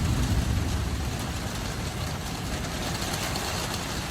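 Storm wind rumbling on the microphone over a steady hiss, loudest in the first second and then easing a little.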